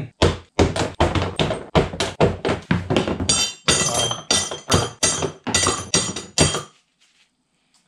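Steel rocker arms from an LS V8 cylinder head being tossed one after another into a cardboard box: a rapid run of knocks and clatters, about three a second, some with a short metallic ring, stopping about a second before the end.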